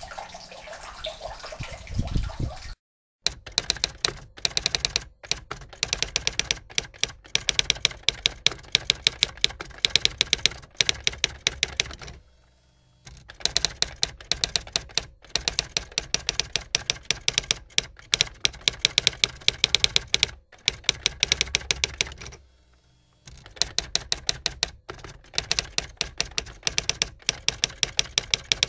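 Typewriter sound effect: long runs of rapid keystroke clicks, broken twice by a short pause. It follows a few seconds of water from a tiled patio fountain, which cuts off about three seconds in.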